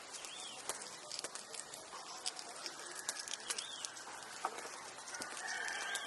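Outdoor ambience: a few short bird chirps, scattered light clicks and taps, and a thin steady high-pitched whine that comes in about halfway and strengthens near the end.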